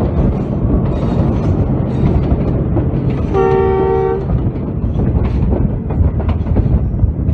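Dense rumble and rail clatter of a passenger train running close alongside. A diesel locomotive's multi-tone horn sounds once, for about a second, a little past the middle.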